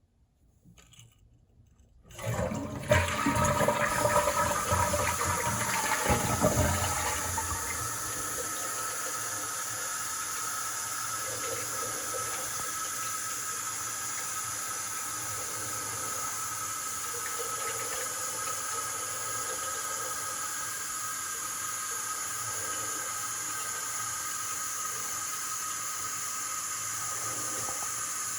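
A toilet flushing: about two seconds in the water rushes and drains loudly for about five seconds, then the cistern refills with a steady hiss through the fill valve.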